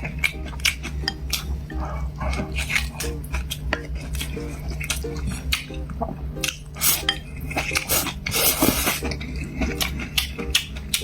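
Eating utensils clinking and tapping against bowls and plates during a meal: many short, irregular clicks.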